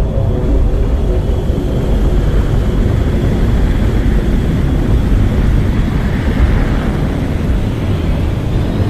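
Sci-fi sound effect of a large cargo spaceship passing by slowly: a loud, steady, deep rumble with a hissing whoosh that swells toward the middle and fades. Faint rising whines begin near the end.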